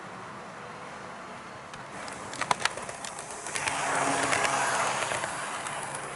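HO gauge model train running on the track: a steady rolling noise, a few sharp wheel clicks about two and a half seconds in, then a louder rush of running noise for a couple of seconds before easing back.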